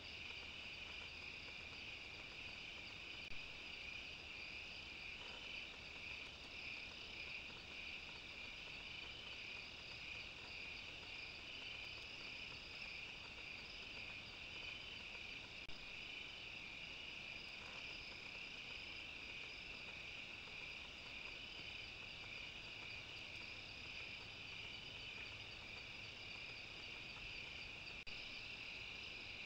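Steady, faint night chorus of crickets and other insects, a continuous high-pitched trilling. Two brief faint clicks, a few seconds in and about halfway through.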